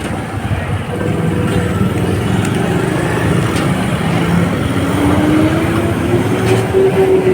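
Honda motorcycle engine running while riding, with wind and road noise. The engine note climbs about five seconds in, then eases back near the end.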